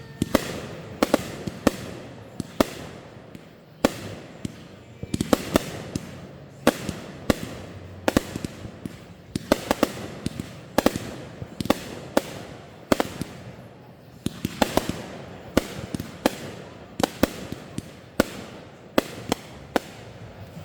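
Fireworks going off in quick, irregular succession: many sharp bangs, some close together in clusters.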